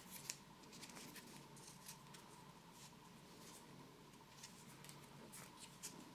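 Near silence with faint, scattered rustles and small clicks of PTFE thread-seal tape being handled and wrapped around a radiator tail's threads.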